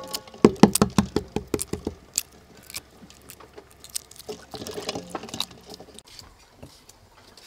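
Boiled egg shells being cracked and peeled off by hand over a bowl of water: a quick run of crackling clicks in the first two seconds, then lighter crackles and small water splashes. A short ring sounds right at the start.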